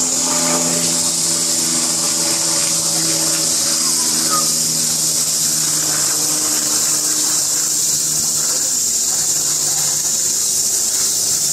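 A steady, high-pitched chorus of cicadas, with a faint low hum underneath.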